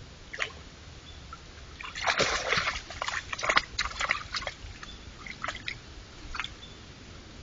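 White-tailed deer stepping in the shallow water at a pond's edge: irregular splashes and sloshes, busiest from about two to four and a half seconds in, over a steady faint hiss.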